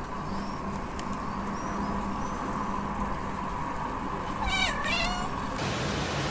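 A tabby house cat meows once, a single wavering meow a little over halfway through, over a steady background hum.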